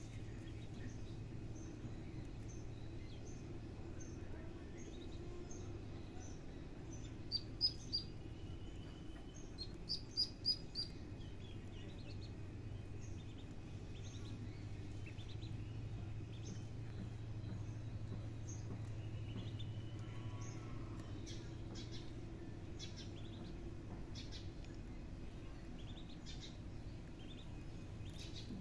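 Small birds chirping on and off, short high chirps, with two louder runs of quick chirps about a quarter and a third of the way in, over a steady low hum.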